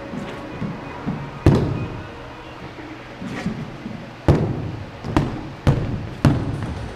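Shoes stamping on a concrete floor during longsword footwork: about five sharp footfalls, the loudest about one and a half seconds in and just past four seconds, each dying away briefly in the large room.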